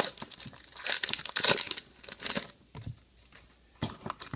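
Trading card pack wrappers crinkling and tearing as packs are opened, in a few crackly bursts with a short lull about three seconds in.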